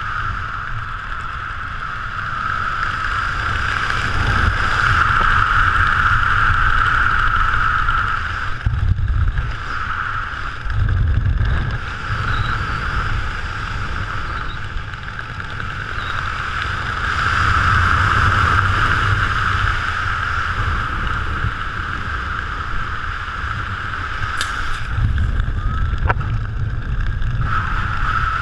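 Wind rushing over a parachutist's camera microphone during a parachute jump. It is a steady rushing roar that swells and eases twice.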